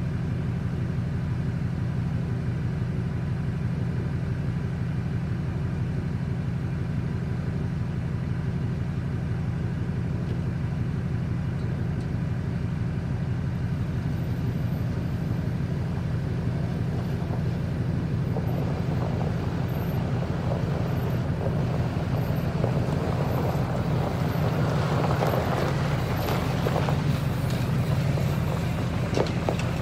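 Lifted Chevy pickup's engine running steadily at low speed while it tows a boat trailer. From about 18 seconds in, tyre and trailer noise on gravel grows louder as the rig draws close and passes.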